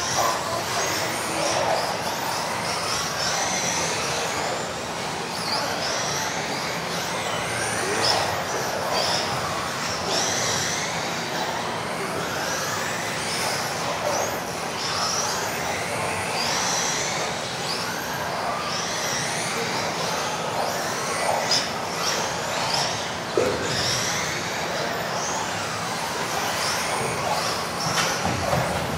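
Several off-road RC buggies racing together, their electric motors whining up and down in pitch as they speed up and slow down through the corners. A few sharp knocks come a little past the middle.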